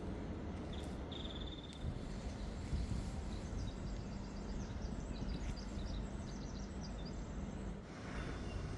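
A small bird sings a quick run of high chirps over a steady low rumble of outdoor background noise; a short high whistle comes about a second in.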